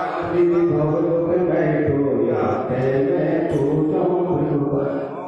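A man chanting Jain mantras into a microphone in a continuous sing-song recitation, with a brief pause near the end.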